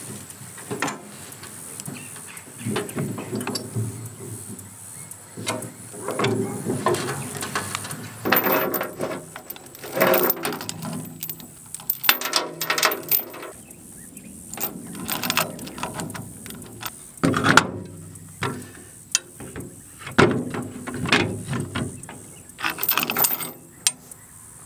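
Steel chain rattling and a red high-lift farm jack clanking and clicking as they are handled and set up on a brush hog's rusty steel blade pan, rigged to pull the rust-seized pan off the gearbox shaft. Irregular clusters of metal clanks and chain rattles, with a quieter spell about halfway through.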